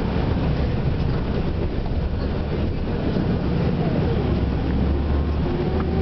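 Tour bus engine and road noise heard from inside the cabin: a steady, low rumble.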